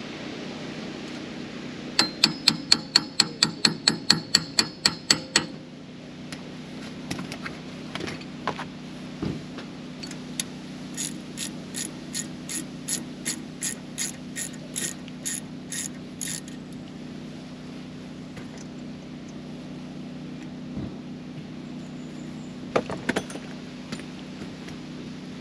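Hammer striking a brass punch against the wheel hub's cone washers to loosen them. A quick run of about a dozen ringing metal strikes, about four a second, is followed later by a slower run of lighter taps, about two a second, over a steady low hum.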